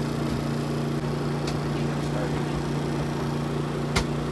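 A motor running steadily with an even low hum, and a single sharp click about four seconds in.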